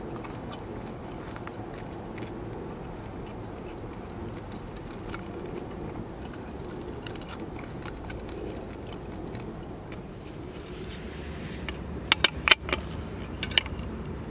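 Steady low background noise, with a quick run of about five sharp clicks or clinks near the end.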